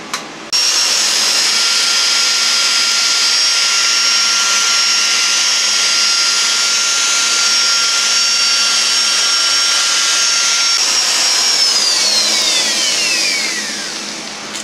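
Electric rotary polisher with a coarse sponge pad buffing a plastic headlight lens with coarse compound, the first stage of polishing. It starts abruptly, runs with a steady high whine, then is switched off about eleven seconds in and winds down with a falling whine.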